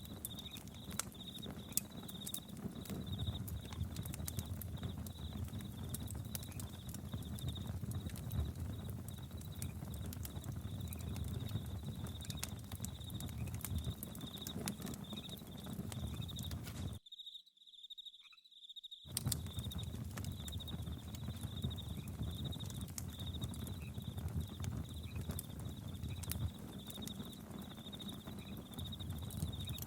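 Campfire crackling with frequent sharp pops over a low rumble of burning, with a steady high pulsing chirp of crickets behind it. The whole sound cuts out for about two seconds a little past the middle, then resumes.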